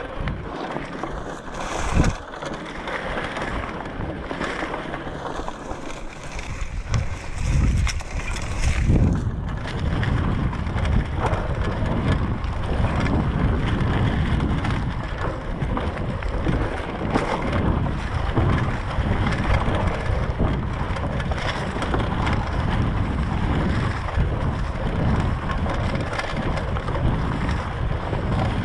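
Mountain bike tyres rolling over dry fallen leaves on a dirt singletrack, with the bike rattling and wind buffeting the microphone. There is a sharp knock about two seconds in, and the low wind rumble gets heavier from about seven seconds in.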